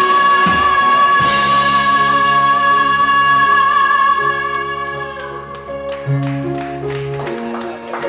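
Live band music: a singer holds one long high note over bass, guitar and drums, and the note fades about five seconds in. The band then plays on with changing bass notes and drum hits.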